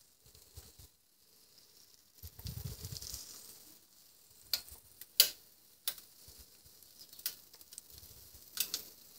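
Waffle batter sizzling faintly as it is poured and scraped onto the preheated plate of a Presto Flipside Belgian waffle maker. A handful of sharp taps of the spatula against the glass bowl come from about halfway through, the loudest a little past five seconds in.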